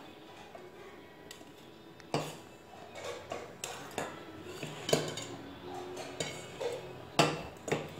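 Steel spoon clinking and scraping against a stainless steel bowl while scooping damp wheat flour, a string of sharp clinks starting about two seconds in.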